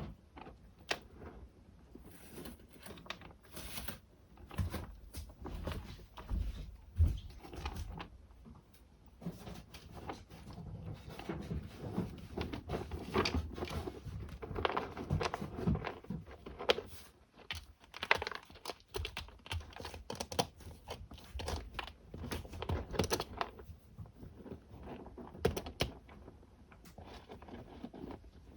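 Kittens scratching and digging in cat litter: irregular crunching, rustling scrapes, busiest in the middle.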